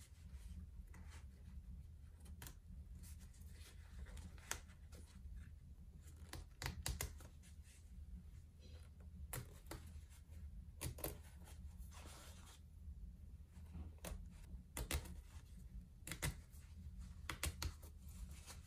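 Seam ripper cutting the thread stitches of a denim jeans hem: irregular small, sharp snaps and clicks as the threads are picked and cut.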